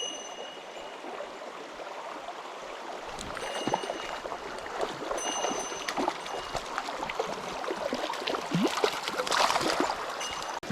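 Mountain stream running and babbling over rocks, growing a little louder about three seconds in. A faint high steady tone comes and goes a few times above it.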